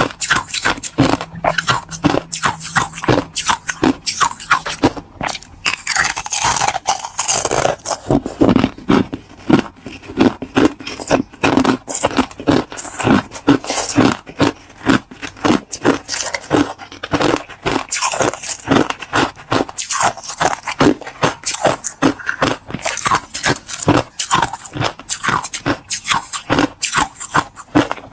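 Close-miked crunching and chewing of ice, a rapid, unbroken run of crisp crunches several times a second.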